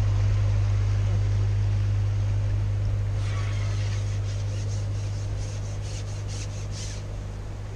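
Narrowboat engine running with a steady low hum, fading gradually as the boat moves away. About three seconds in, a scratchy rubbing sound comes in strokes for several seconds.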